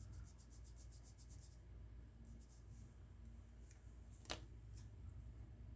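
Faint quick strokes of a pencil on paper, about ten scratches a second for the first second and a half, then a few more. A single sharp tap about four seconds in.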